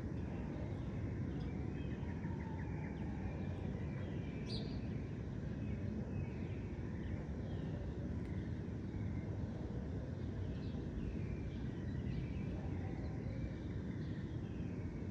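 Many small birds chirping in short, scattered calls, one sharper high chirp about four and a half seconds in, over a steady low rumble of distant city traffic.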